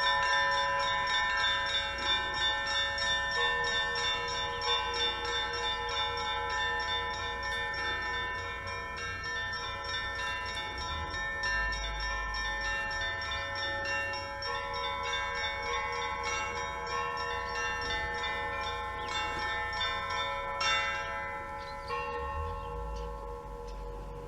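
Russian Orthodox monastery bells ringing: a rapid, dense pattern of small high bells struck over the lingering tones of larger bells. The strikes thin out and the ringing fades near the end.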